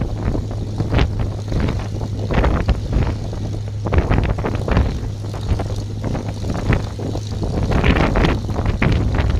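Hawker Hurricane's Rolls-Royce Merlin V12 engine running at low power, a steady low drone broken by irregular exhaust crackles.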